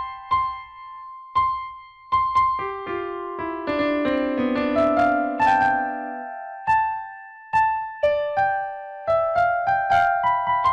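Background music: a piano or electric-piano melody of struck notes, each ringing and fading, with a run of lower chords about halfway through.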